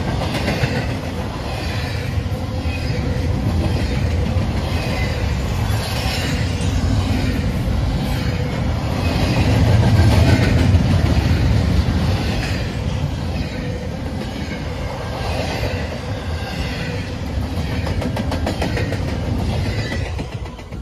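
Double-stack intermodal well cars rolling past on steel wheels, a steady rumble with wheel clatter repeating about once a second. The sound falls away suddenly near the end as the last car passes.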